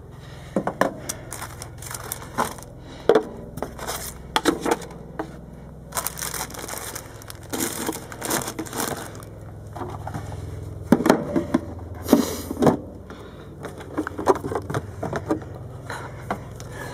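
Plastic bags crinkling and rustling as they are handled, with irregular clicks and knocks scattered throughout.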